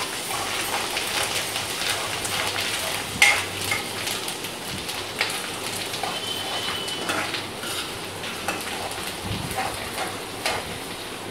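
Chopped onion, green chillies and herbs sizzling in hot oil in a kadai while a steel spoon stirs them, scraping and clicking against the pan. One sharper clink about three seconds in.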